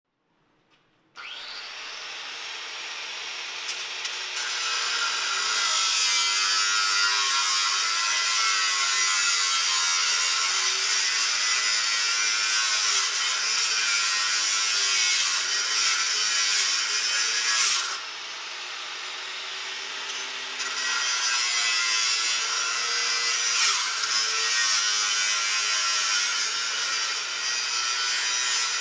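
Angle grinder spinning up about a second in, then cutting into the steel front end of a Saab 900 with a loud, steady grinding whine. About two-thirds of the way through, the disc comes off the metal and runs lighter for a couple of seconds, then bites in again and cuts on to the end.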